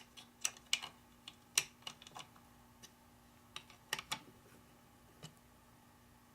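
Irregular light clicks and taps of small hardware being handled during assembly, Allen screws, washers and jig parts knocking together, clustered in the first two seconds and again around four seconds in.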